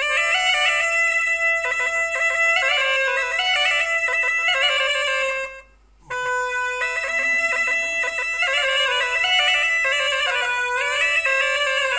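A kamış, a Turkish reed pipe, playing a folk-song melody. Each phrase opens on a held note and then runs in quick steps up and down, and the playing stops for a short breath about halfway through before it starts again.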